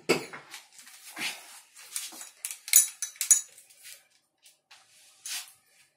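Scattered clicks, knocks and rustles of kitchen items being handled while a batidora is fetched, with a few sharper clicks about halfway through.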